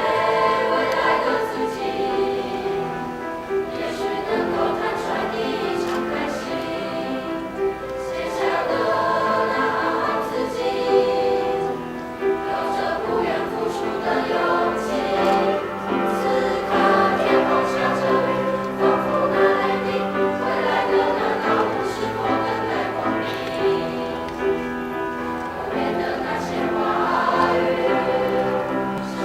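High-school student choir singing in phrases, with several voices held together on sustained notes.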